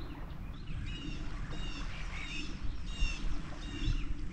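A small songbird giving a series of short, bright chirps, about two a second, over a low background rumble.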